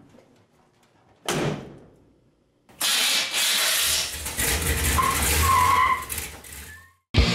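A pickup truck door slams shut about a second in. Then, from about three seconds in, the 1972 Chevy C10's engine runs loudly for a few seconds, with a few short squeals near the end.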